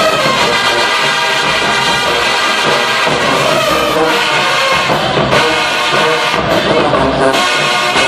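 HBCU marching band playing live: a full brass section sounds sustained chords over drums, with the drum strokes standing out more from about halfway through.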